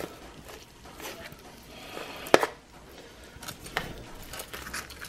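Metal tongs clicking and scraping against a sheet pan as pieces of roast chicken and potatoes are turned over, with one sharp clack a little over two seconds in and a smaller one near the end.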